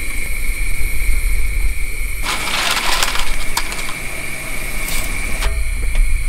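Portable gas stove burner running with a steady low roar, with a brief rustle about two seconds in and a few light clicks.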